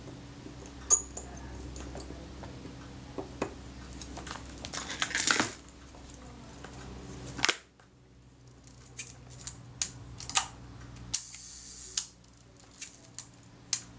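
Small metallic clicks and a short scraping rasp from a Kodak Retina IIS 35mm film camera being handled as its top-cover screws are driven and the camera is turned over in the hands. The clicks come more often in the second half, over a faint steady hum.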